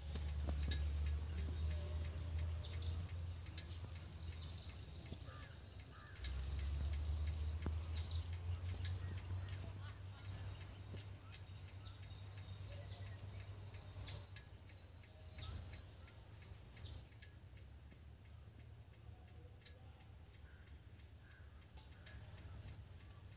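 Rural outdoor ambience: a steady, high, pulsing insect drone, with a bird giving short descending whistled calls every second or two. A low rumble comes and goes underneath, strongest early on and again a few seconds later.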